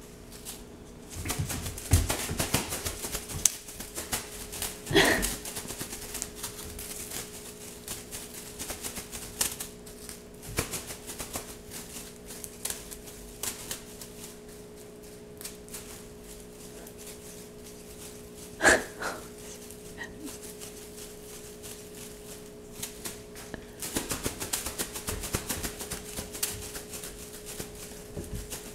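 A cat's paws and claws tapping and scuffling on a hardwood floor as it leaps and bats at a string toy, in irregular clusters of clicks that are busiest near the start and in the last few seconds. Two short louder sounds stand out, about five seconds in and past the middle, over a steady low hum.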